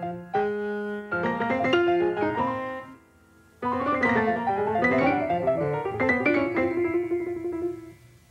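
Piano music, pausing briefly about three seconds in and fading out near the end.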